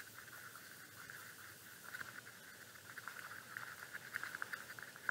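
Paintbrush stirring and dabbing acrylic paint in a plastic palette well as white is mixed into black: faint, quick scratchy ticks that get busier about halfway through.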